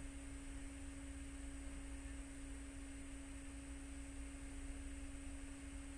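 Faint steady hum: one low, even tone over quiet room noise.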